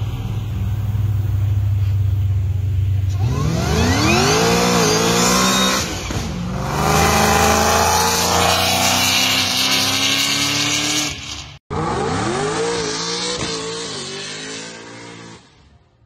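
Cadillac CTS-V V8 exhaust through a Valvetronic valved muffler, idling and then launched at full throttle about three seconds in, its pitch climbing through the gears with a dip at a shift. After an abrupt cut, a second hard acceleration rises and then fades away.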